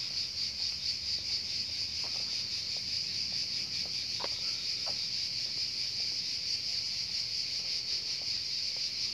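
Chorus of cicadas making a steady, high-pitched, rapidly pulsing buzz, with a few faint short clicks over it.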